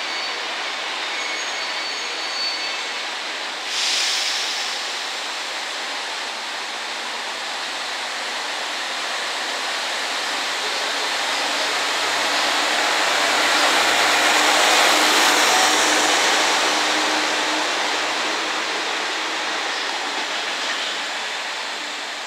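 JR West KiYa 141 diesel track-inspection railcar set running through the station, its engine and wheels growing louder to a peak about fourteen seconds in, then fading as it pulls away. A short burst of hiss about four seconds in.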